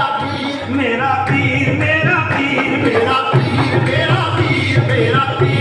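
Qawwali: several men singing together in a sustained melodic line over a harmonium, with a steady beat of hand-clapping about twice a second.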